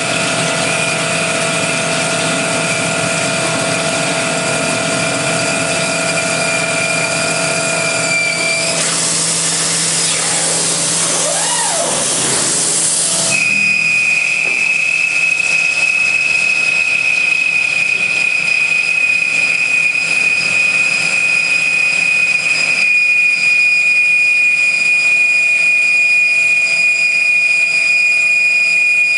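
Unisign Uniport machining centre milling a railway bogie frame under flood coolant: a steady high whine from the cutting over the hiss of the coolant spray. From about 9 to 13 seconds in the hiss grows louder, then a single high whine steadies and grows stronger.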